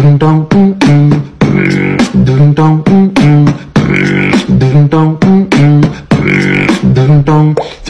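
Background music: a looping beat of sharp percussive hits under a repeating pitched vocal-style phrase.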